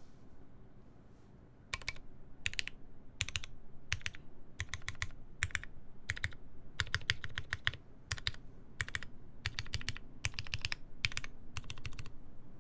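Typing on a TGR Jane v2 CE mechanical keyboard with lubed Cherry MX Black linear switches, GMK keycaps and a full aluminium plate. After a short pause, it comes in quick runs of keystrokes separated by brief gaps.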